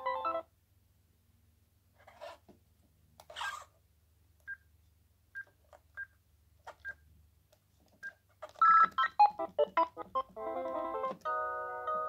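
Philips CD285 cordless phone handset playing ringtone previews: a polyphonic ringtone cuts off about half a second in, then single short key beeps sound about a second apart as the menu is scrolled. Near the end, brief snatches of other ringtones play in quick succession, and a melody of held notes begins as the next ringtone is highlighted.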